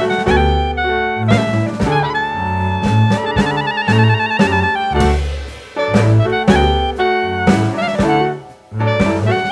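Jazz music with a saxophone-like horn melody over a walking bass and drums, including a long wavering held note a few seconds in and a brief break near the end.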